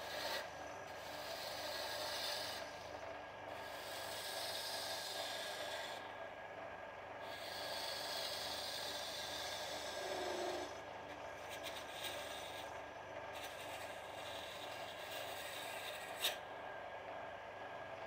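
Wood lathe running with a steady motor hum while a hand-held turning tool scrapes the end of the spinning hardwood blank in several passes of a few seconds each, a rasping hiss. Near the end there is one sharp click.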